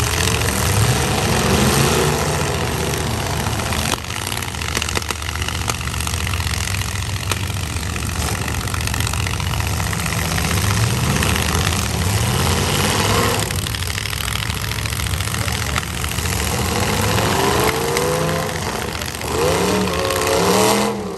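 Demolition derby pickup truck engines running and revving hard, the pitch rising and falling as the trucks push against each other. The revving is loudest near the end.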